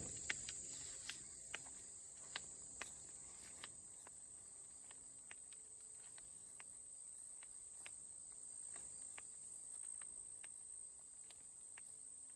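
Steady high-pitched insect chorus, with scattered light clicks of footsteps and snapping twigs in the brush, more of them in the first few seconds.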